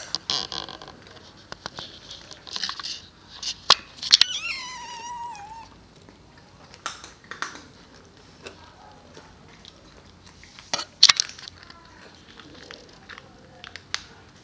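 Maine Coon kittens crunching dry kibble from a stainless steel bowl, with scattered sharp clicks and crunches. About four seconds in, one kitten gives a single meow that falls in pitch over about a second and a half.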